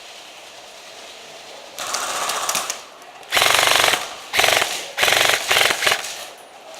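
Airsoft electric rifle firing on full auto: a quieter burst about two seconds in, then four loud bursts in quick succession from the G&P Stubby Killer AEG.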